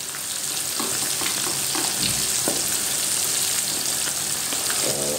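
Chicken pieces deep-frying in a pan of hot oil: a steady sizzle with scattered crackling pops.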